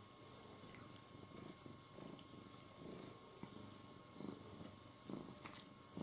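Domestic cat purring softly, in pulses that come about once a second as it breathes in and out. A single sharp click about five and a half seconds in.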